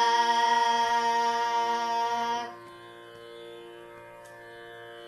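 Devotional song in Carnatic style: a sung note held steady on the last "Rama" stops about two and a half seconds in, leaving only a quiet accompaniment of faint steady tones.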